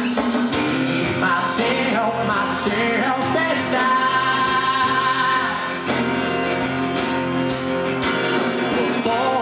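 Live rock band playing with guitars, a male voice singing over it and holding one long note around the middle. The full band comes in loudly right at the start.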